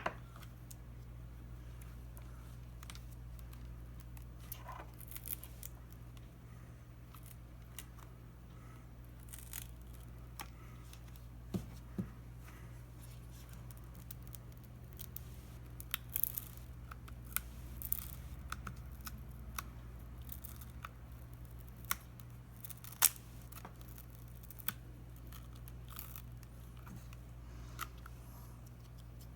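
Scattered small crackles and clicks as the shattered touchscreen glass and its adhesive are pried away from a tablet's frame, the glue releasing bit by bit, over a steady low electrical hum.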